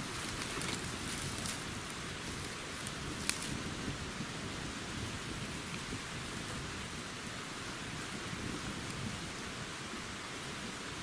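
Birch bark and dry twigs catching alight in a newly lit campfire, crackling with a few sharp pops in the first few seconds, the loudest about three seconds in, over a steady rushing hiss.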